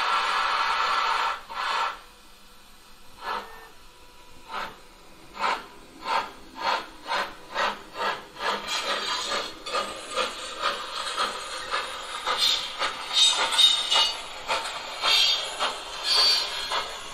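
Steam-locomotive sound from the ESU LokSound 5 decoder of a Gauge 1 Prussian T3 model tank locomotive, played through its loudspeaker as the engine moves off. A loud steam hiss stops about a second in, followed by a second short hiss. Then the exhaust chuffs begin at about one a second, quicken to about two a second, and run faster and busier towards the end.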